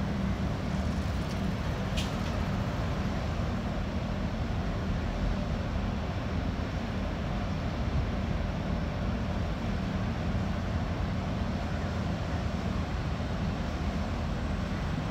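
Ship engine droning steadily at a low pitch over a wash of wind and water, with one sharp click about two seconds in.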